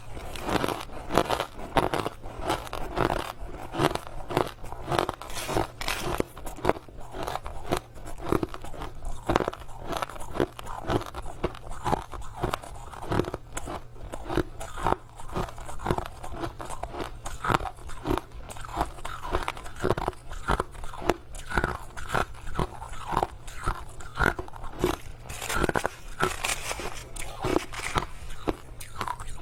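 Crushed ice being bitten and chewed close to the microphone: a dense, irregular run of sharp crunches with no pause.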